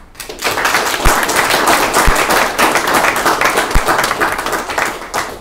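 A room full of people applauding at the close of a lecture, many hands clapping together. The applause swells within about half a second, stays loud, and fades near the end.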